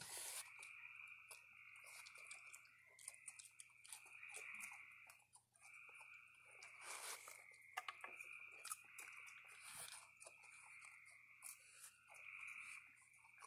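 Raccoons chewing and crunching dry cereal and cookies, a faint run of small crackles and clicks, over a steady high-pitched background drone.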